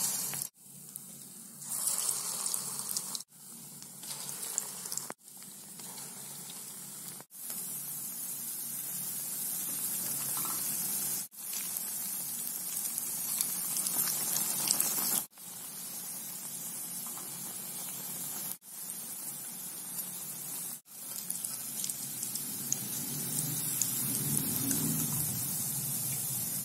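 Ulundu (urad dal) vadas deep-frying in hot groundnut oil, a steady sizzling hiss of bubbling oil. It is broken off by several abrupt cuts every few seconds.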